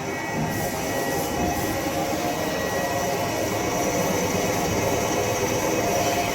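CNC lathe running, a steady machine drone that grows a little louder over the first couple of seconds.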